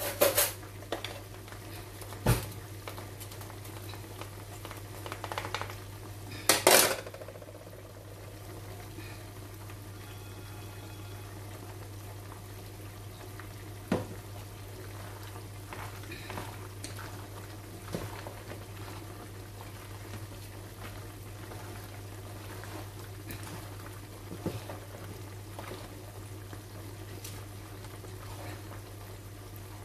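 Beef bubbling and sizzling gently in a frying pan over a steady low hum, while a wooden spoon stirs and knocks against a plastic bowl of pasta salad. A few short loud scrapes or rattles stand out near the start and about seven seconds in, with single sharp knocks scattered later.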